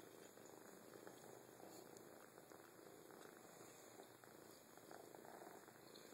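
A kitten purring faintly and steadily while being handled.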